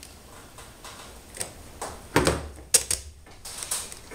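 Small clicks and knocks of metal hardware and a metal gantry plate being handled on a tabletop during assembly, with a heavier knock a little past halfway and two sharp clicks soon after.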